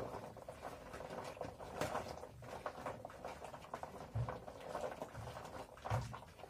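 A hand stirring and rubbing small hard balls of qurut (dried yogurt) in a plastic bowl: irregular clicking and scraping, with two dull knocks in the second half.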